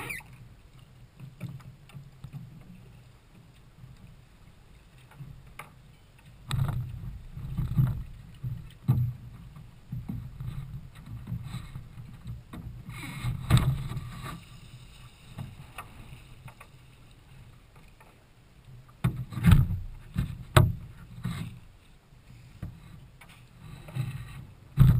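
Water slapping and splashing against the hull of a Nelo racing kayak under way, heard from its bow deck, with irregular surges and sharp knocks over a constant low rumble.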